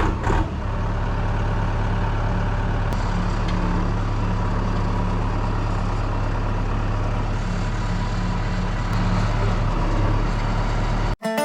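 Engine of a compact tractor with a backhoe running steadily under work. It cuts off abruptly near the end.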